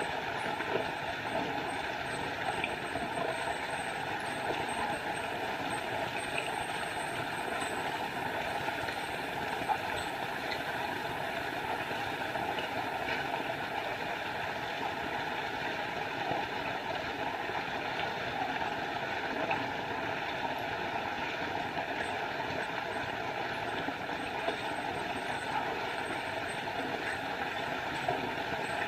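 Small forest waterfall running: a steady, unbroken rush of falling water.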